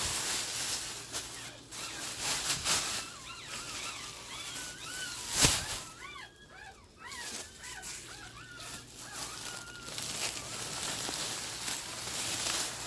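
Newborn puppies squeaking, a run of short high-pitched cries that rise and fall through the middle, over soft rustling. A single sharp knock about five and a half seconds in is the loudest sound.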